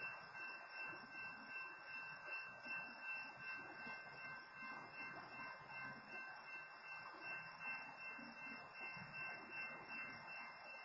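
Railroad crossing warning bell ringing faintly and steadily, pulsing about twice a second, over a low rumble.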